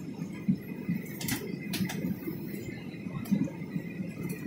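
Cabin noise inside a jet airliner descending to land: a steady low rumble of engines and airflow. A few sharp clicks come through it, about a second in, just before two seconds and past three seconds.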